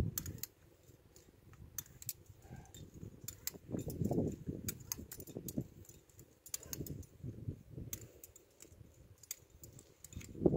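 Metal climbing gear, carabiners and quickdraws on a harness, clinking in scattered light metallic clicks as the climber moves, over an uneven low rumble that is strongest about four seconds in.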